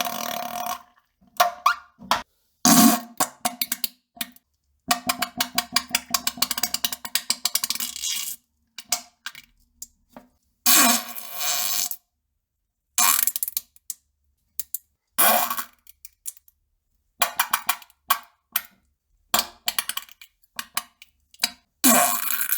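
A string of farts: separate blasts with short silences between them, some short and some long and sputtering with a rapid fluttering stutter. The longest runs about three and a half seconds, from about five seconds in.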